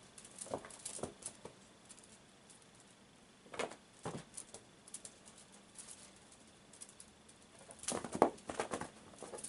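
A kitten's paws thudding and pattering on a carpeted floor as it jumps, lands and scampers. The sound comes in three short bursts of quick soft thumps, the loudest near the end.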